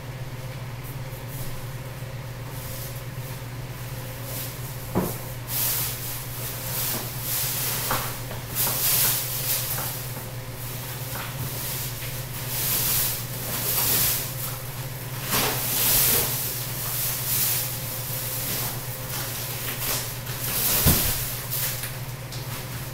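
Plastic wrapping and packaging rustling and crinkling in bursts as plastic-wrapped sofa pieces are pulled from their shipping box, with a couple of knocks. A steady low hum runs underneath.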